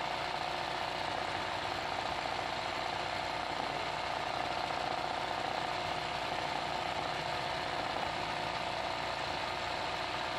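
Sewing machine running steadily, its needle stitching continuously without stopping during free-motion machine embroidery (satin-stitch fill in a hoop).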